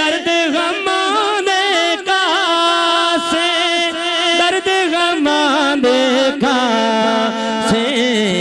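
A man singing a Punjabi naat into a microphone, holding long wavering notes that bend up and down between words, with the pitch dropping lower near the end.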